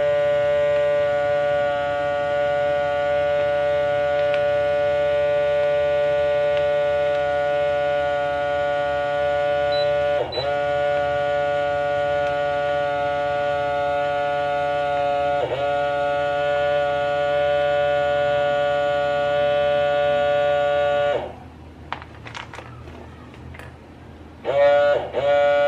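Electric food vacuum sealer's pump running with a steady hum as it sucks the air out of a reusable vacuum storage bag through a hose on the bag's air valve. Its pitch dips briefly twice, and it stops about 21 seconds in. After a few faint rustles it starts again with two short runs near the end.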